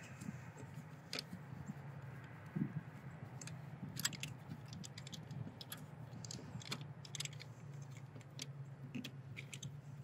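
Scattered small clicks and scrapes of a screwdriver and fingers working the terminal screws and wires of a barrel control switch, over a faint, steady low hum.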